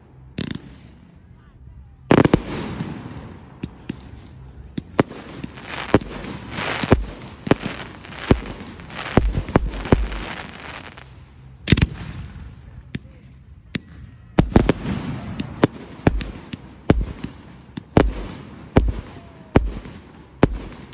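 Aerial fireworks display: shells bursting overhead with sharp bangs at irregular intervals, heavy single bangs between dense clusters of quick cracks.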